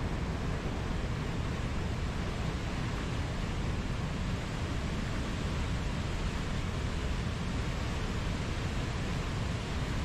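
Whitewater river rapids rushing over rocks: a steady, unbroken rush of water, heaviest in the low end.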